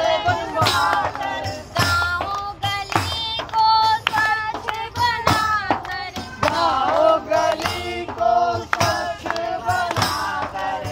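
A group of voices singing a song in chorus, with a frame drum (dafli) and a jingled tambourine struck and hands clapping along to keep time.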